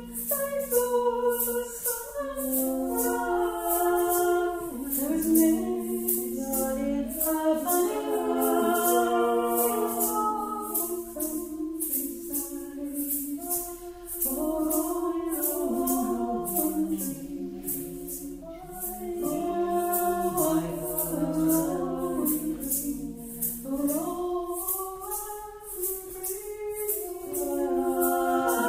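Choir singing slowly shifting, held chords without words, over a steady shaken-percussion rattle at about two beats a second.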